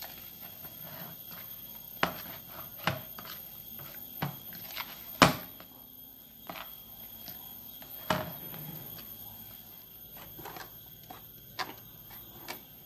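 Bread dough kneaded by hand in a plastic bowl and on a plastic cutting board: scattered, irregular knocks and thumps of hands and dough against the plastic, the loudest about five seconds in.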